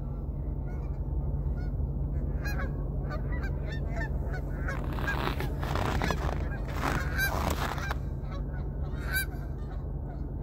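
A flock of geese honking, many short calls overlapping and busiest in the middle, over a steady low rumble.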